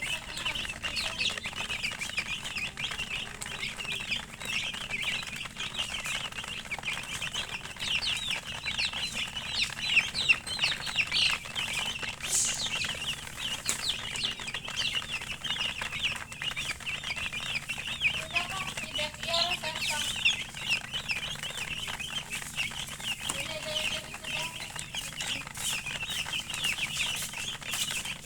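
A group of domestic chicken chicks chirping continuously, many short high peeps overlapping, with a few lower clucking calls partway through.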